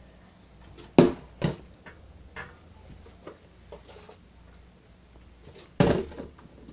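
A plastic bottle being flipped and landing with sharp knocks: two loud hits about a second in, a few softer taps after, and another loud hit near the end.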